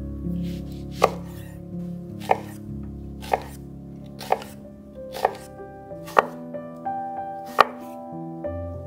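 Chef's knife slicing a red onion on a wooden cutting board, about seven cuts at roughly one a second, each ending in a sharp knock of the blade on the board. Background music with sustained tones plays underneath.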